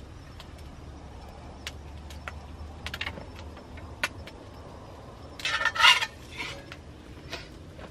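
Small wood fire crackling with scattered sharp pops. About five and a half seconds in, a metal utensil clinks and scrapes in a heavy pan over the fire; this is the loudest sound.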